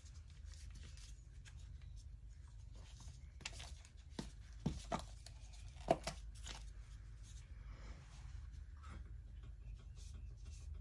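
Quiet handling noises: a handful of small clicks and taps from hands working with small painting supplies, the sharpest about six seconds in, over a low steady hum.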